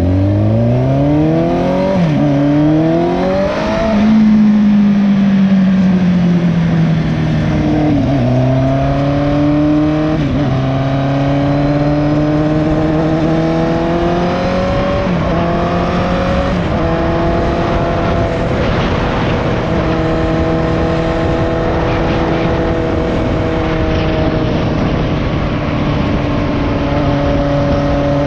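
Motorcycle engine and exhaust under way, which the title says has an exhaust leak. It revs up through several gear changes, its pitch climbing and then dropping at each shift, and from about halfway it settles into a steady cruise.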